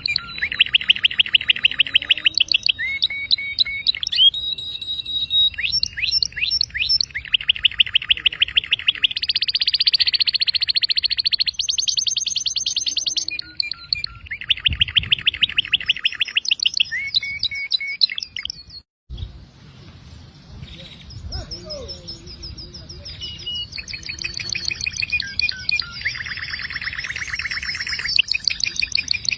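Domestic canary singing a long song of rapid trills and whistled notes, switching from one rolled phrase to the next every second or two. A brief break comes about two-thirds of the way through, then the song picks up again, softer at first.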